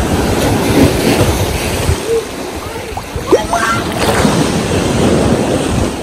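Small sea waves washing against a stone seawall and breaking in the shallows, with wind gusting on the microphone as a loud, uneven low rumble.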